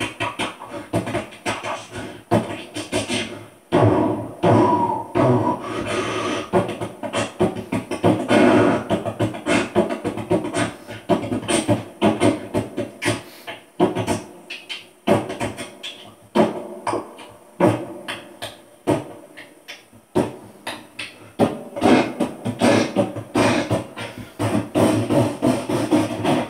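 Beatboxing: a man's voice making fast, rhythmic percussive clicks and snare-like hits with low hummed tones between them.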